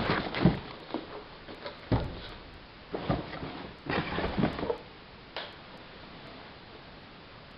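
Scattered knocks and rustles, several in the first five seconds, the sharpest about half a second and two seconds in, then only a quiet steady background.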